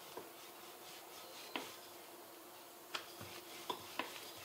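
Wooden rolling pin rolling out a stuffed paratha on a flour-dusted stone counter: faint rubbing with about five light, irregular knocks.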